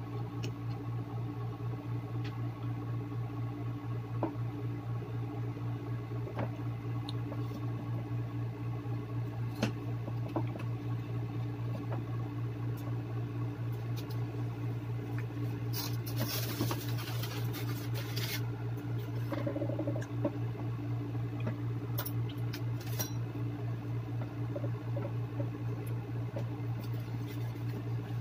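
A person eating a sandwich: soft chewing and small handling clicks over a steady low hum, with a brief rustle a little past halfway.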